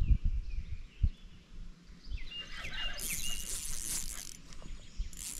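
Low wind and handling rumble at first, then a songbird chirping a few quick high notes about two seconds in. From about three seconds a bright rustling follows, a fabric sleeve brushing against the body-worn camera, twice.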